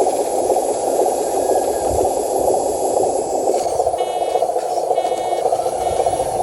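Steady rushing mechanical noise, joined about two-thirds of the way in by a radio-controlled truck's reversing beeper, sounding about once a second.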